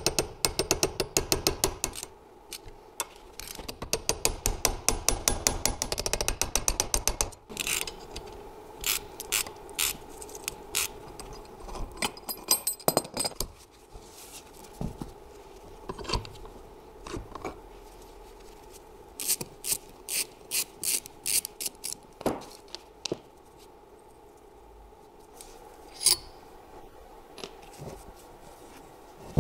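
Ratchet wrench clicking in quick runs, about five clicks a second, as it turns the screw of a gear puller to pull an alternator's end housing off. Over the rest, scattered knocks and clinks of the metal alternator parts being handled and set down on a workbench.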